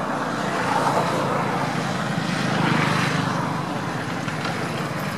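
Engine noise of a passing motor vehicle, swelling to its loudest about halfway through and then fading.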